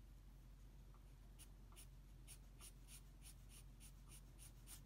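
Pencil strokes on drawing paper: short, scratchy strokes about three a second, starting about a second and a half in, faint.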